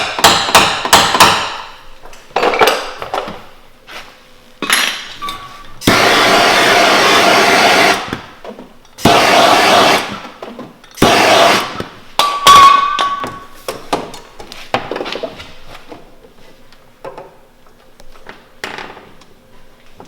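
Paintless dent repair tap-down hammer striking a car body panel, knocking down the high spots around a BB-gun dent: a quick run of sharp taps, then scattered single taps. Several bursts of loud hiss-like noise, each a second or two long, come in between.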